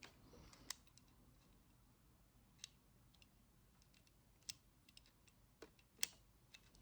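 Near silence broken by a dozen or so faint, irregular light clicks and taps: the small airbrush and its packaging being handled.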